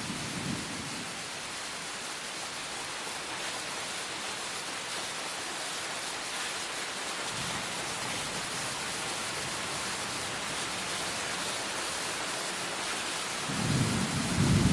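Steady rain hissing, with low rolls of thunder: a short one at the start, a longer one around the middle, and the loudest near the end.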